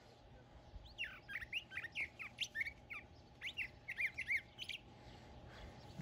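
Songbird singing: a fast, varied run of high chirps and slurred notes, starting about a second in and lasting about four seconds.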